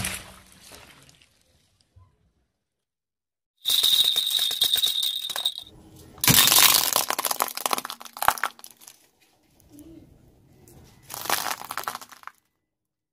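A car tyre crushing a plastic baby rattle. About four seconds in there is a jingle, then a long stretch of dense cracking and snapping as the plastic breaks, and a shorter burst of crunching near the end.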